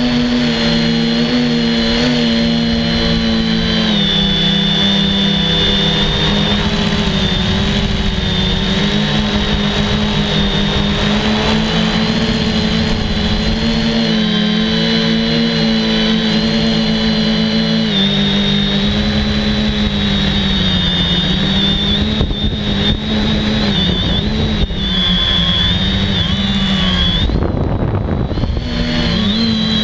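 FPV quadcopter's electric motors and propellers whining, recorded on board, with a steady hum under a high whine whose pitch steps up and down with throttle changes. Near the end the high whine briefly drops out, then comes back.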